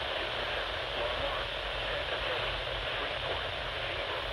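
Weak radio reception: steady static hiss with a low hum underneath and a faint voice barely rising above the noise.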